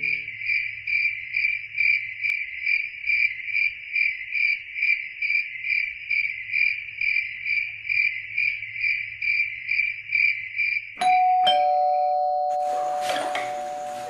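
A cricket chirping steadily at a high pitch, about two chirps a second. About eleven seconds in it stops with two sharp clicks, followed by a steady ringing tone that slowly fades and then a rustling noise.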